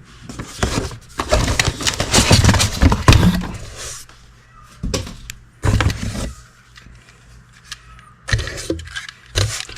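Unpacking noise: packaging rustling and small metal and plastic parts knocking and clattering as they are handled, a busy stretch at first, then a few separate knocks.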